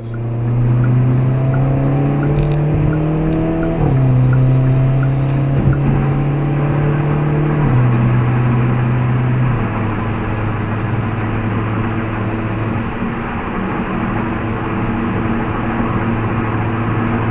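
Hyundai Elantra N's 2.0-litre turbocharged four-cylinder under hard acceleration on the highway, heard from inside the cabin. The engine note climbs steadily, drops at upshifts about four and eight seconds in, then runs on as a steadier drone mixed with road noise.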